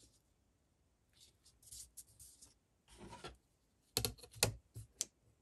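Paper being handled: rustling and crinkling of thin paper, then a quick run of sharp taps and clicks about four seconds in.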